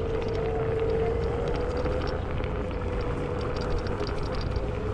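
Navee N65 electric scooter's 500 W hub motor whining at a steady pitch while cruising, over a low rumble of wind and tyre noise on the road.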